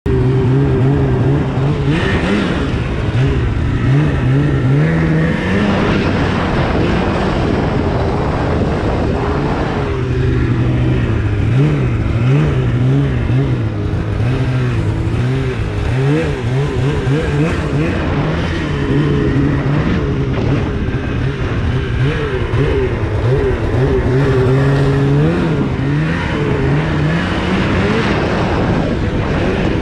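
A 2016 Polaris RMK 800's two-stroke twin engine, fitted with a Bikeman aftermarket exhaust can, running under way with its pitch rising and falling over and over as the throttle is worked.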